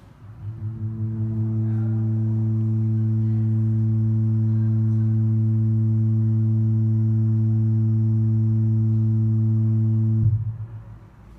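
Low steady hum from the vibration driver beneath a shallow tray of liquid, swelling in over about two seconds, holding level, then cutting off suddenly about ten seconds in. The vibration raises a grid of standing ripples (Faraday waves) across the liquid's surface.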